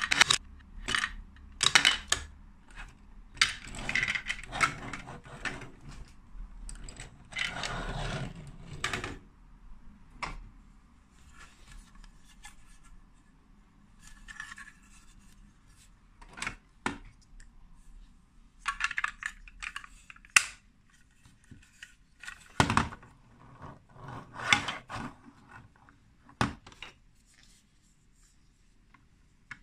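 Hard plastic Lego Duplo bricks and toy truck parts being handled and fitted together: sharp clicks, knocks and short rattles, with plastic scraping on plastic. Busy for the first several seconds, then scattered clicks, with another run of handling past the middle.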